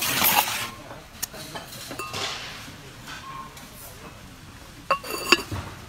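Earthenware cooking pot and its ceramic lid clinking together twice near the end, each strike ringing briefly, as the lid is handled. A short burst of handling noise comes at the start.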